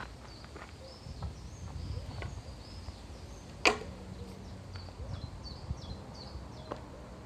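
A claw hammer striking a floorboard chisel once, sharply, about halfway through, with a few lighter knocks of wood around it as a pallet's nailed cross pieces are levered off. Small birds chirp repeatedly in the background.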